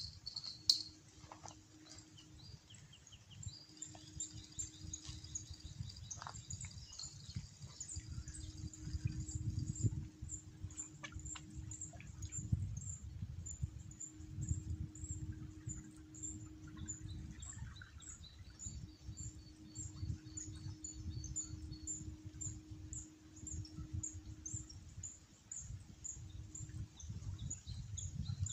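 Short high chirps repeating steadily, about two to three a second, joined for stretches by a faster, lower trill. Under them runs a low rumble and a faint hum that comes and goes.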